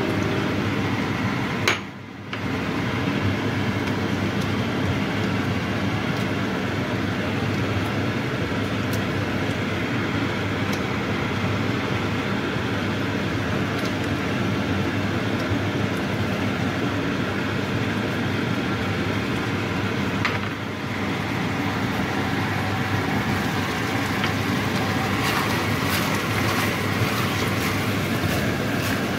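Mapo tofu sauce sizzling and bubbling steadily in a wok as cornstarch slurry is stirred in, with a spatula scraping and clicking against the pan, more often near the end.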